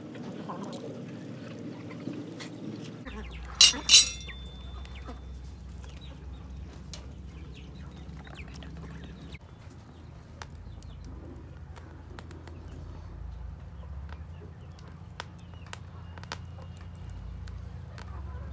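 Two short, loud bird calls close together about three and a half seconds in, over a low steady hum with scattered faint clicks.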